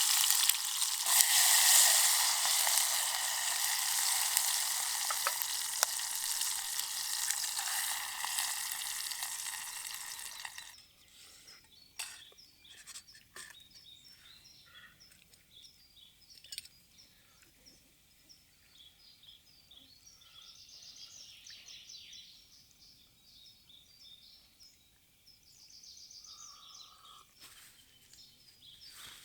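Food sizzling loudly in a hot pan for about ten seconds, then cutting off suddenly. Quiet outdoor background follows, with a few short bird chirps.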